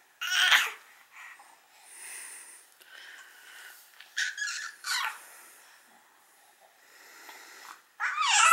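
A baby and a yellow Labrador face to face: short breathy snorts and sniffs, and high squeals with a wavering pitch, the loudest about eight seconds in.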